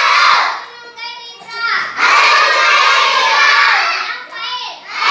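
A roomful of children shouting together in two long loud bursts, with a briefer phrase of a single voice about a second in and another near the end.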